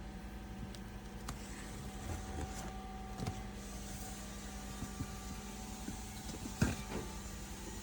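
Steady mechanical hum with scattered clicks and knocks of tools and parts being handled during suspension work on a car, the loudest knock about six and a half seconds in.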